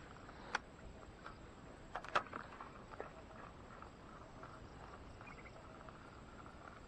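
A few sharp clicks over a faint, steady outdoor background: one about half a second in, a louder double click about two seconds in, and a weaker one a second later. The clicks come from handling a spinning rod and reel.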